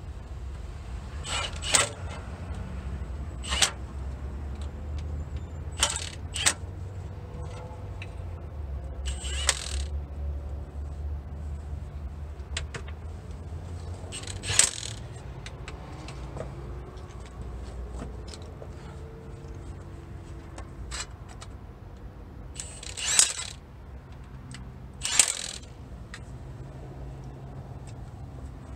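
Cordless impact wrench and loose bolts and sockets under a van's transmission pan: a scattering of short, sharp metallic clatters, a few lasting about half a second, over a steady low background rumble.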